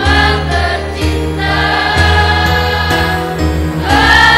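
School choir singing in parts over a steady low bass accompaniment, the voices swelling into a louder held chord near the end.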